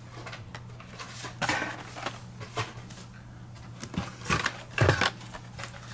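Carded Hot Wheels die-cast cars in plastic blister packs being handled and shuffled out of a cardboard case: scattered light clacks and rustles, the loudest a little before the end, over a steady low hum.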